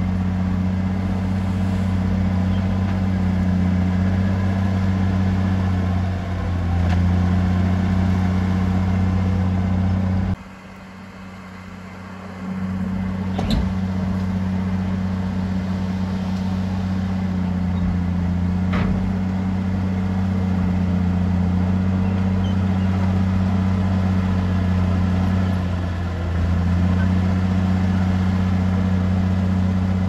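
Heavy diesel engine of earthmoving machinery running steadily at a constant pitch, dipping briefly twice. The sound drops away for about two seconds near the middle, and there is a sharp click shortly after.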